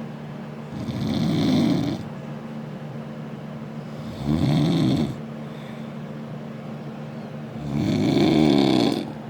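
A man snoring loudly: three long snores, each about a second, coming about every three and a half seconds.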